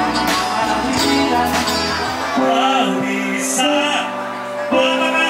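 Live rock band playing, with drums, bass, electric guitars and keyboard under a man's singing. A little over two seconds in, the drums and bass drop out, leaving held chords and the voice.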